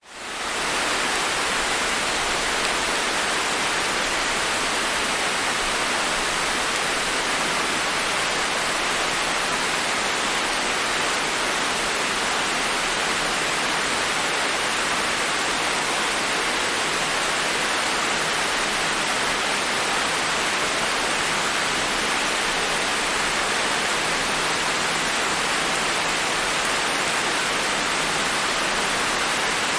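Steady rain falling, an even hiss that fades in over the first second and then holds level.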